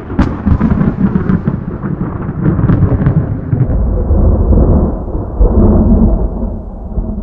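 Loud thunder: a sudden clap with sharp cracks, rolling into a deep rumble that swells again before fading away near the end.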